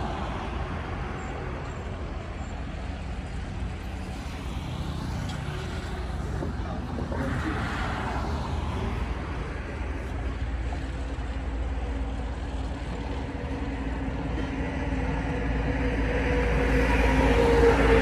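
Diesel engines of a tracked excavator and a small bulldozer running under load. The sound grows louder near the end, with a pitched engine tone coming up as the machines work harder.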